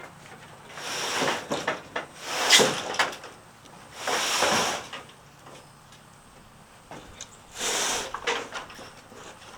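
Porch roof panels being worked loose and slid apart, their overlapping laps held together with silicone. Four scraping bursts a few seconds apart, the second the loudest.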